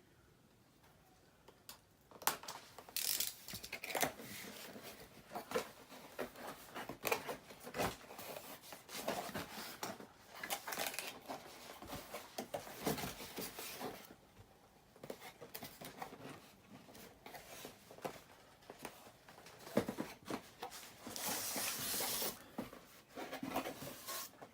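Cardboard and plastic packaging being opened and handled: irregular tearing, rustling and crinkling with clicks and knocks, including a longer tearing rustle near the end.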